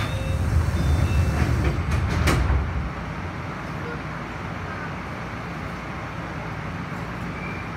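Stationary Enshu Railway electric train heard from the cab: a heavy low rumble for about the first three seconds, with a sharp click just before it stops, then a steady low hum from the train at rest.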